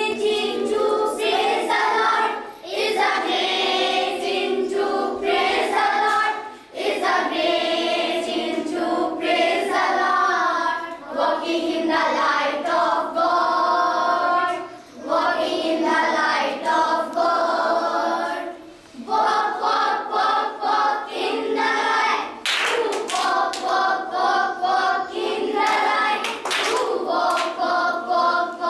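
A group of children singing an action song together in phrases, with short breaks between lines, and a few hand claps near the end.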